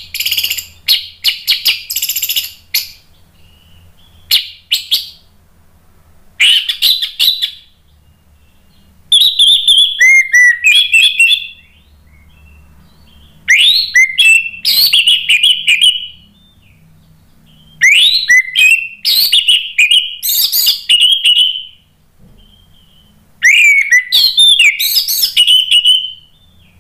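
Orange-headed thrush singing: about seven loud phrases of quick, sliding whistles and chirps, each one to three seconds long, separated by short pauses.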